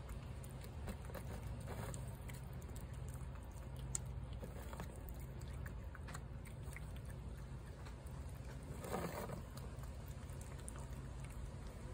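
A feral tabby cat eating pieces of meat from a plate, chewing with a scatter of small wet clicks and smacks over a low steady rumble. A brief louder rush of noise comes about nine seconds in.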